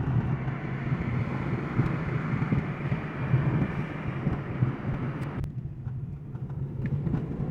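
Car cabin noise while driving: a steady low engine and road hum with tyre and wind hiss, the hiss dropping away suddenly about five seconds in and leaving the low hum.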